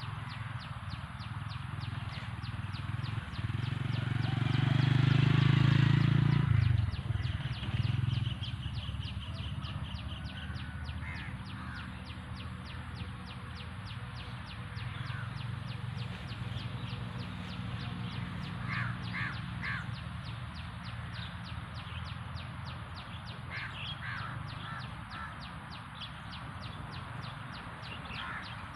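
A bird calling in short groups of three or four harsh notes, caw-like, over a steady low hum. A louder low rumble swells a few seconds in and cuts off suddenly.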